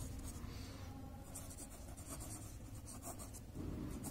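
Pen writing on ruled notebook paper: faint scratching that comes in short strokes and pauses as words are written out by hand.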